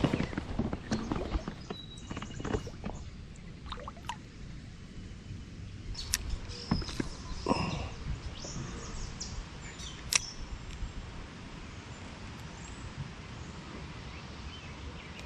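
Open-air river ambience with a few short bird chirps and scattered small clicks and knocks from gear handling.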